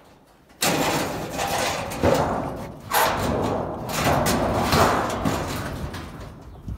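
Clattering and scraping of metal hand tools being handled and rummaged through, in several loud rattling bursts.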